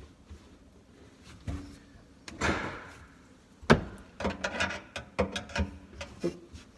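Clicks, knocks and a short scrape of a garbage disposal's mounting ring being turned with a screwdriver to lock the unit onto its mount. A sharp click near the middle is followed by a quick run of smaller clicks.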